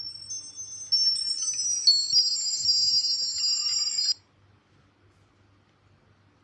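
A Nokia N8-00 ringtone playing from the phone: a high, chiming melody of overlapping bell-like tones that grows louder about a second in and cuts off suddenly about two-thirds of the way through.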